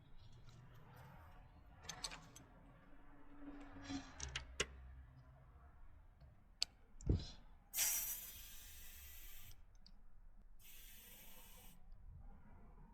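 A few clicks and knocks, then three bursts of hissing compressed air from an air compressor inflating a tubeless gravel tyre to seat the bead and lock the seal, the first burst the loudest.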